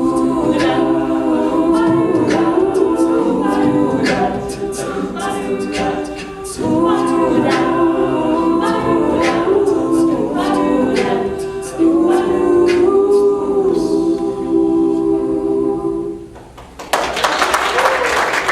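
A cappella vocal group singing a wordless closing passage in close harmony. Near the end the singing fades out and applause breaks in.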